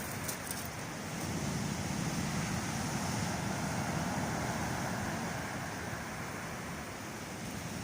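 Storm surf rushing onto the beach as a continuous wash of breaking waves that swells after about a second and eases slightly near the end, with wind on the microphone.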